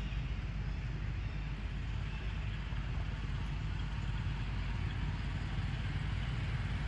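Steady outdoor background noise: a continuous low rumble with an even hiss above it and no distinct events.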